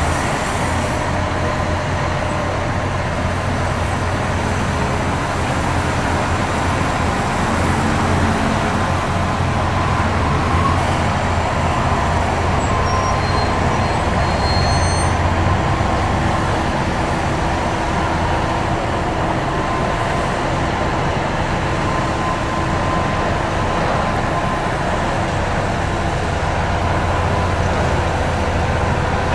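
Steady diesel engine noise from loaded Mercedes-Benz Actros three-axle dump trucks and earthmoving machinery at work, over a constant wash of motorway traffic.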